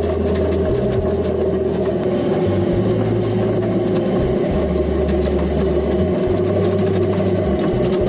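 Stainless steel potato peeling machine running: a steady motor hum with potatoes tumbling and knocking in the spinning drum as water is poured in.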